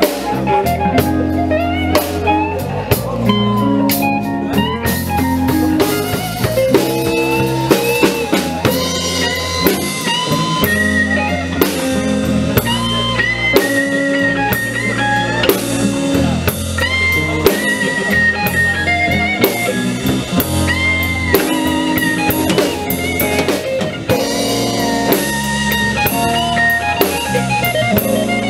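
Live blues band playing a minor-key blues instrumental passage: electric guitar, electric bass and drum kit, with a lead line of held, bending notes over a steady bass line.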